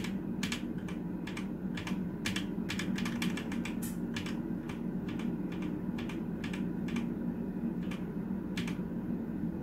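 Typing on a Vooka Blic K50 mechanical keyboard with red linear switches: keys clacking in an irregular run of several presses a second.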